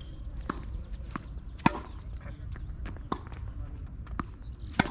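Tennis ball and racket strikes on a court: a run of sharp knocks about every half second, with two louder hits, one about a second and a half in and one near the end, over a steady low rumble.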